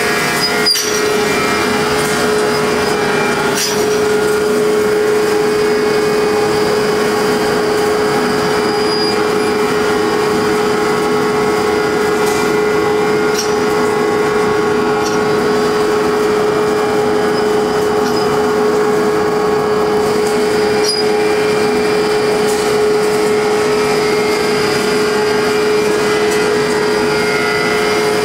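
Heavy industrial roller-chain drive running over a large sprocket, with its gear reducer: a loud, steady machine drone with a strong constant hum and a few faint clicks.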